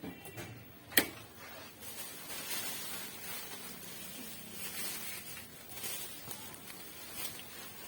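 Handling noise from taking apart a gas heater: a sharp click about a second in, then irregular scraping and rustling with small knocks.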